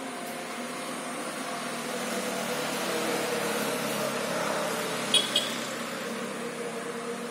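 Steady hum of a distant engine, swelling through the middle and easing off again. Two short high chirps come about five seconds in.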